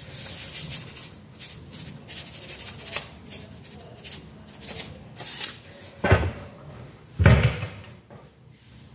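Salt shaken from a plastic container over a bowl of dumpling filling, a quick dry rattle of many short shakes. About six and seven seconds in come two heavier thumps, a second or so apart.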